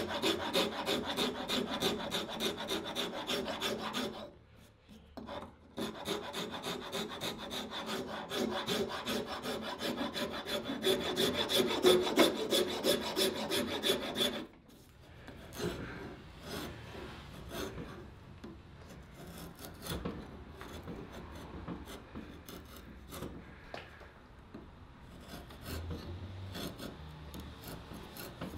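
Wood being worked with a rasp, with rapid rasping strokes on a cabreuva wood kunai blank. The strokes are loud and dense for about fourteen seconds, with a short pause about four seconds in, then turn quieter and lighter.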